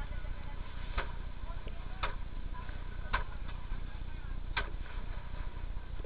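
Four sharp knocks or clicks, roughly a second apart, over a steady low rumble.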